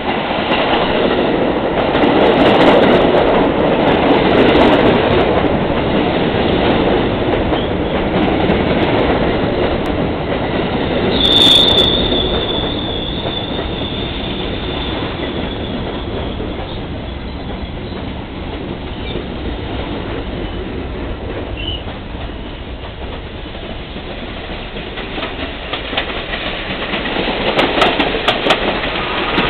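R68-series New York City subway trains running past on the tracks: a steady rumble of wheels on rail, a brief high wheel squeal about eleven seconds in, and a rising clatter of wheels over rail joints near the end as another train passes.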